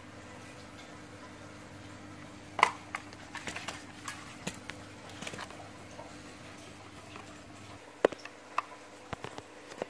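Scattered light clicks and taps of small tools and parts being handled, over a steady low hum. The clicks come in a cluster from about a third of the way in and again near the end.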